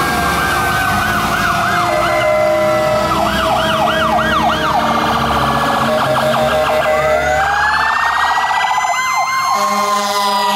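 Several fire truck sirens sounding at once, overlapping. Electronic sirens yelp in quick rising-and-falling arcs, and a long, slow wail rises and falls beneath them.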